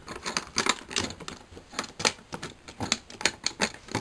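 Irregular rapid clicks and taps of plastic LEGO bricks and a cardboard toy robot being pushed, knocked together and handled on a cardboard floor.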